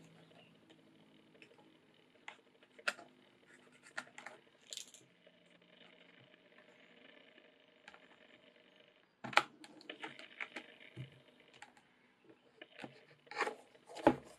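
Light handling sounds from work on a hand-stitched leather knife sheath on a cutting mat: scattered small taps and scratches, a busier stretch of rubbing along the stitched seam about nine seconds in, and a few sharper taps near the end.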